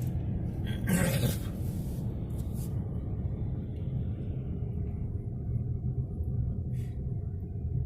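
Engine of a vehicle or heavy machine running with a steady low rumble, with a short hiss about a second in.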